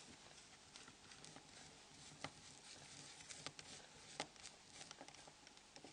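Faint, irregular small clicks and ticks of a small screwdriver working on the screws of a Nokia N71 mobile phone's casing, with a few sharper clicks.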